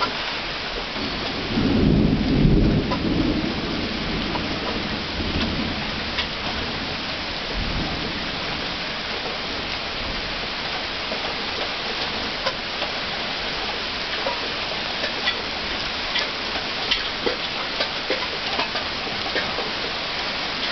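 Thunderstorm: steady rain falling, with a low rumble of thunder about two seconds in and a weaker one near eight seconds. In the second half, sharp drop taps on a nearby surface come more often.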